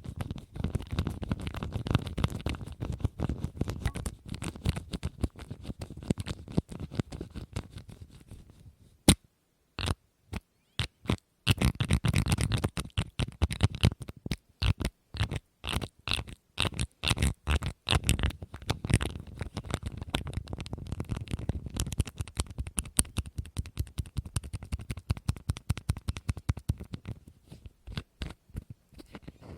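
Rapid tapping and scratching on a hard object, in dense fast runs. Around a third of the way in it drops to a near-silent gap broken by a few single sharp taps, then the fast tapping resumes.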